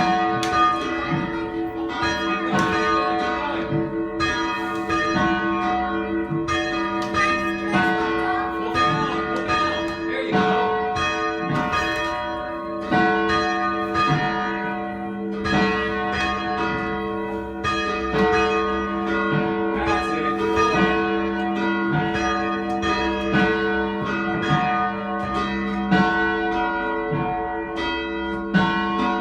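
Church bells being rung: a continuous run of strikes, about two a second, each bell ringing on and overlapping the next.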